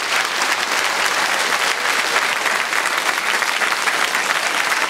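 Audience applauding, a steady dense patter of clapping throughout.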